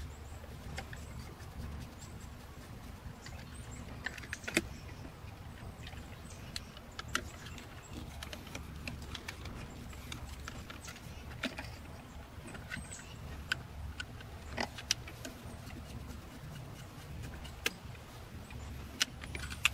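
Faint, irregular metallic clicks and light scrapes of a screwdriver working the terminal screws of a GFCI outlet as its wires are unhooked, over a low steady background rumble.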